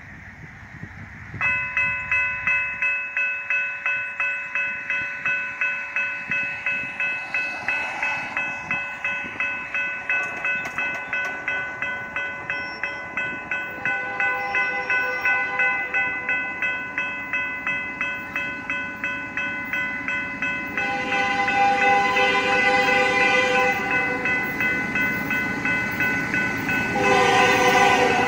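Railroad crossing bell starts ringing about a second and a half in, with steady strokes about twice a second as the signals activate. An approaching locomotive's horn blows over it: faintly about halfway through, then louder in long blasts and again near the end.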